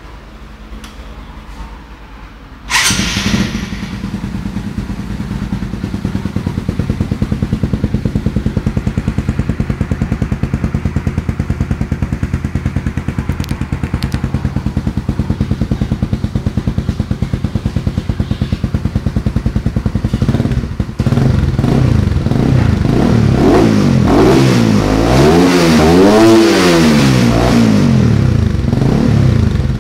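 Honda CBR150R's single-cylinder four-stroke engine, breathing through a custom underseat exhaust, starts up about three seconds in and idles steadily with a pulsing note, then from about twenty seconds in it is revved up and down several times.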